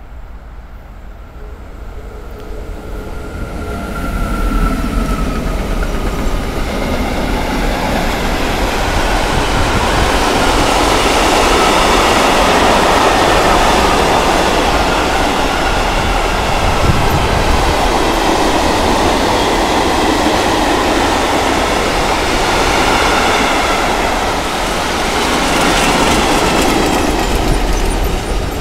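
Mixed freight train hauled by a DB Class 189 electric locomotive passing at speed. The sound builds over the first few seconds as the locomotive arrives. Then the tank and covered wagons roll by with a steady rumble and clickety-clack of wheels on the rails.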